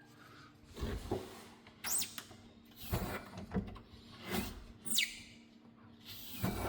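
Worn gas struts squeaking as they are worked: a string of short squeaks about once a second, some sliding down or up in pitch. The struts are failing and leaking oil.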